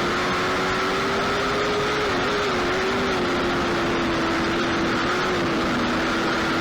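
Race car engine running at high, fairly steady revs with a rushing noise. Its pitch climbs just before and then holds with small dips.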